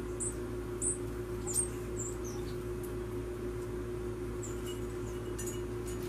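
Small songbirds giving short, very high chirps, several in quick succession early on and one or two more near the end, over a steady low hum.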